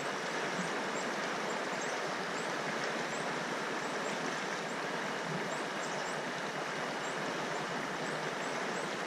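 Steady rushing of a mountain creek flowing fast over shallow riffles.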